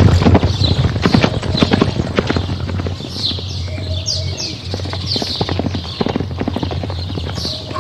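Zebras, an adult and a foal, galloping on dry dirt: a rapid, dense run of hoofbeats, loudest in the first second or so. Short high calls falling in pitch come in from about three seconds in and again near the end.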